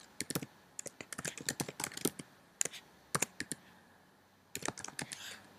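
Typing on a computer keyboard: a quick run of key clicks, a pause of about a second near four seconds in, then another short burst of keystrokes.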